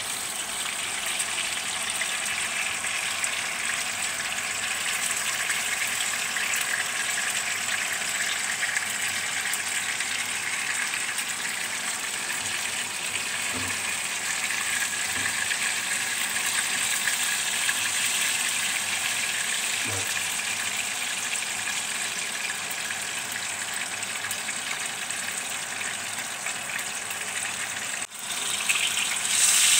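Whole tilapia frying in hot oil in a wok, with a steady sizzle. A spatula knocks softly against the fish and pan a few times, and the sizzle gets louder for the last second or so.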